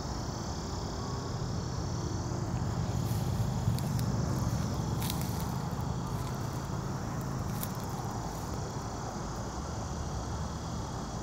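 Steady drone of insects, with a low rumble and a few faint rustles and clicks as someone walks through tall weeds.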